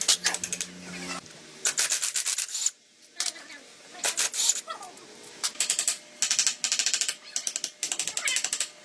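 Rapid back-and-forth rubbing strokes, as in sanding by hand, coming in bursts of about a second with short pauses between them.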